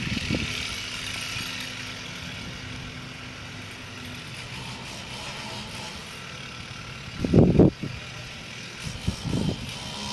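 Chainsaw engine idling with a low steady hum that drops away about four seconds in. About seven seconds in comes a loud low burst of noise lasting about half a second, and two shorter, weaker ones follow near the end.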